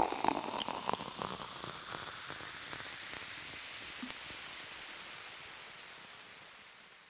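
A steady hiss with a few crackles in the first second or so, fading out near the end.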